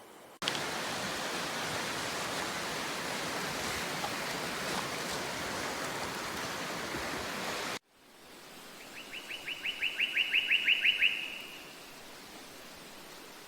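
Steady wash of sea waves that starts abruptly and cuts off sharply after about seven seconds. Then, over a faint hiss, a bird sings a trill of quick repeated high notes that speeds up and grows louder over about three seconds before fading.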